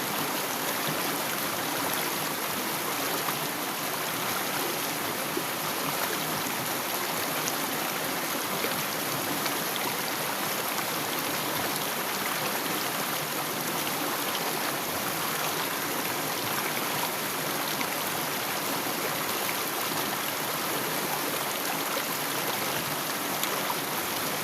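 Stream water trickling and flowing over rocks: a steady, unbroken rush with no pauses.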